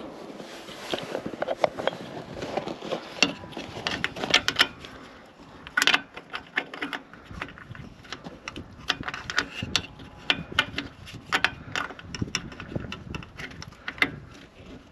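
Irregular small clicks and scrapes of bayonet-base light bulbs being worked out of and into their sockets in a 1964 Ford fire truck's light housing, with one louder click about six seconds in.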